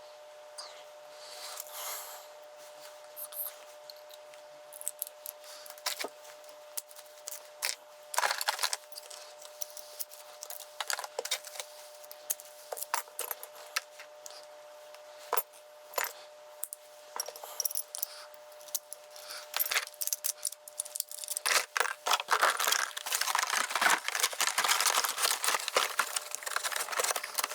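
Keys and small metal lock parts clicking and jangling as they are handled, scattered at first and then a dense, continuous rattle from about three-quarters of the way through, over a faint steady hum.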